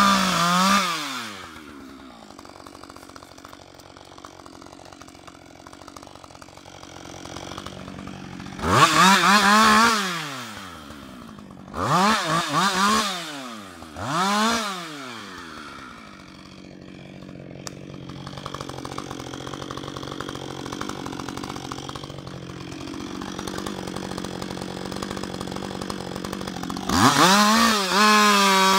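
Husqvarna 560 XP single-cylinder two-stroke chainsaw at full throttle finishing a cut through a log, then dropping to idle. It is revved briefly three times, idles for about ten seconds, and near the end opens up to full throttle again as the chain bites into the next cut.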